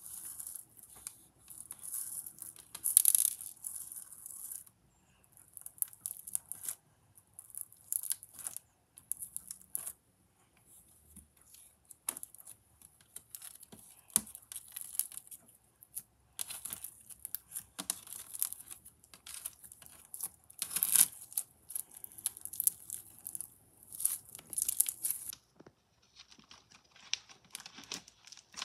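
Clear slime with small black beads mixed in, pressed flat by hand and then kneaded and squished, giving irregular bursts of fine crackles and clicks.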